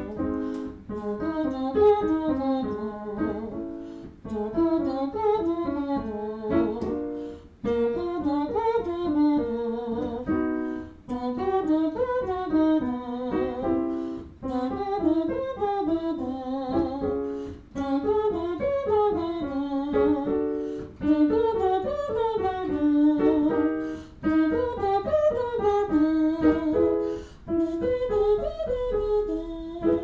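A woman's singing voice phonating through puffed-out cheeks in the 'blowfish' semi-occluded vocal tract warm-up, giving a buzzy, muffled tone. It runs through short up-and-down scale patterns one after another, with brief breaks between them.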